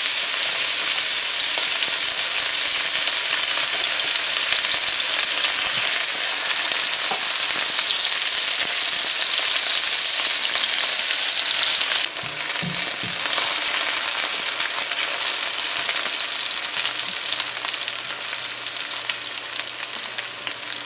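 Sliced onions sizzling in hot oil in a nonstick pan, stirred now and then with a silicone spatula. The sizzle is a steady, loud hiss that drops suddenly about twelve seconds in and eases off a little toward the end.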